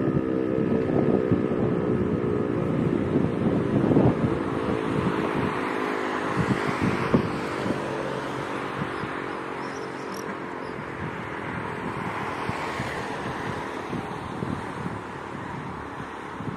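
DS977 siren at the end of a test alarm: its steady tone fades out within the first second, leaving a hiss that slowly dies away. Wind buffets the microphone throughout.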